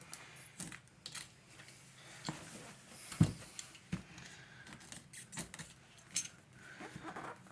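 Hands handling an action-figure toy box and its packaging: scattered clicks, light knocks and rustles, with the loudest knock about three seconds in.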